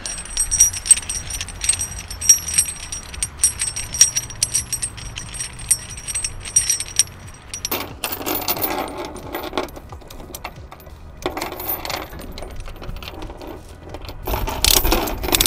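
Steel ratchet chain binder being turned by hand, clicking rapidly with a ringing metallic tone as its hooks are screwed out to the open position. After about seven seconds come clinks and rattles of heavy steel chain as the binder's hooks are set into the links, loudest near the end.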